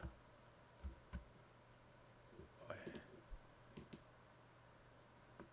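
A few faint, scattered clicks from a computer mouse and keyboard, used to select and copy text, over near-silent room tone.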